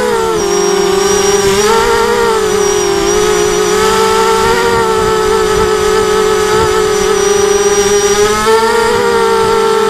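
Electric motors and propellers of an FPV racing quadcopter in flight, heard from its onboard camera: a loud, steady whine whose pitch wavers up and down with the throttle and rises a little near the end.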